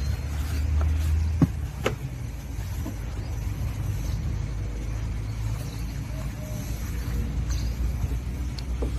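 A microfiber cloth is wiped over the plastic parts of a car's engine bay, with a few sharp taps about one and a half and two seconds in and again near the end. A steady low hum runs underneath.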